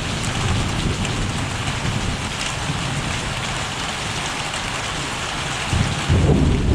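Steady rain falling during a thunderstorm, with a low rumble of thunder swelling up about six seconds in.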